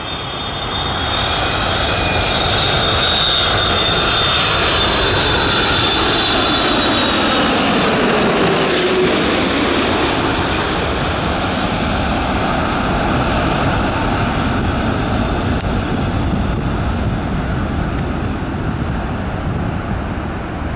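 Boeing 787-8 Dreamliner's GEnx jet engines on final approach, passing low overhead. A high whine fades as the jet nears, the pitch slides downward as it passes about nine seconds in, then steady jet noise follows as it goes away toward the runway.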